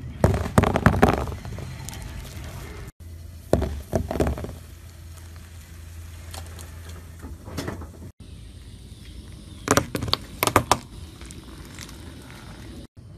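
A car tyre rolling over and crushing bath bombs and other brittle objects: three separate clusters of crunching and crackling a few seconds apart, with a steady low hum under the middle one.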